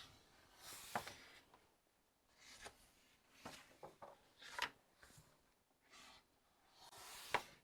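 Pages of a paper book being turned and handled: a handful of soft paper swishes and rustles, with short quiet gaps between.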